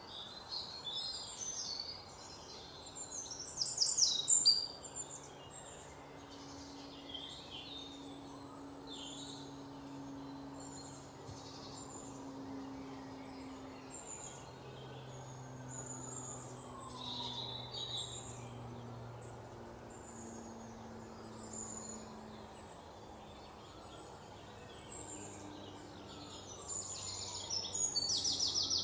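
Several small birds chirping and singing, with short high calls throughout and louder bursts of rapid repeated notes about four seconds in and near the end, over a faint low hum.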